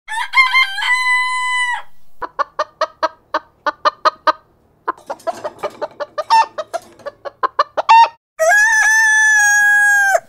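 A rooster crows, then chickens cluck in quick runs of about six clucks a second, and a second long crow near the end cuts off suddenly.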